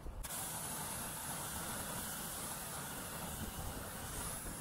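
Pressure washer spraying a steady, hissing jet of water onto a car wheel and tire, rinsing off the tire degreaser. It starts suddenly a moment in.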